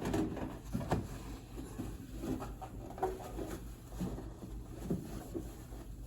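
Scattered light knocks, taps and rubbing as the inside of a microwave is wiped clean and its parts are handled.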